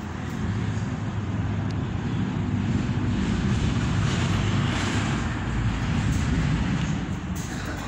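Suzuki GSX-R 750 race bike's inline-four engine running steadily, a little louder from about half a second in.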